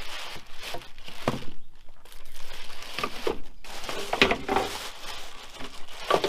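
A bag crinkling and rustling as parts are rummaged out of it, with a couple of knocks from parts being handled.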